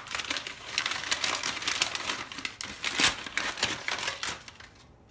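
Wrapping crinkling and crackling as a new brake pad is unwrapped by hand, in dense irregular bursts that thin out and fade near the end.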